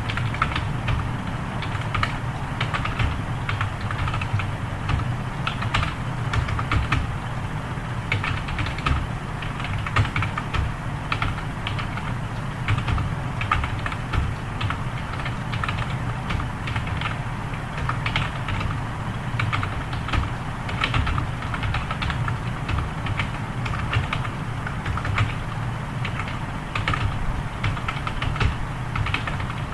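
Fast continuous typing on a computer keyboard: a rapid, irregular stream of key clicks during a typing speed test.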